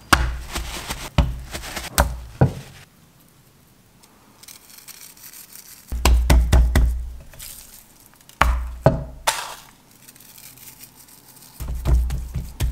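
A raw tomahawk steak being handled on a wooden cutting board: paper rustling at first, then several groups of dull thumps and knocks as the meat is set down, turned and pressed into its salt, with quiet gaps between.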